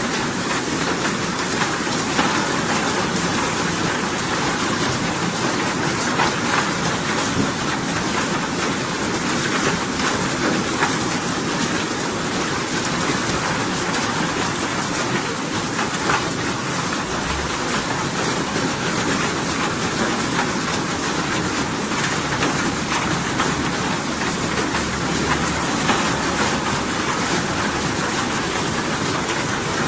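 Steady rain falling: an even hiss over all pitches, dotted with many small drop ticks, unchanging throughout.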